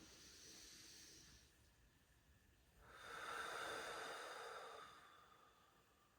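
Slow, deliberate breathing of a yoga breath practice: a soft breath in the first second and a half, then a longer, louder breath about three seconds in.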